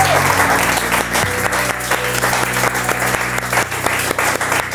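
A small group of people applauding over background music with sustained low notes.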